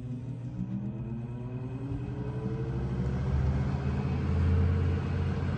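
LG 12,000 BTU air conditioner running, its motor whine rising slowly in pitch over a steady low hum as it spins up. The low rumble grows louder about two seconds in.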